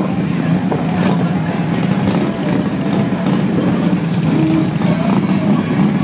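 Many heavy touring motorcycles rolling past slowly in a dense line, their engines a steady, continuous low rumble, with crowd voices mixed in.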